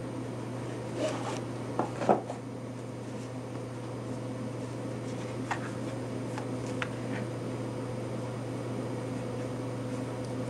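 Steady low electrical hum of room tone, with a few soft clicks and rustles from an old book being taken from a bookcase and handled; the loudest knock comes about two seconds in.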